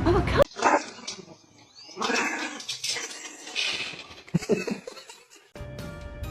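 A dog giving a few short barks and yips, in separate bursts.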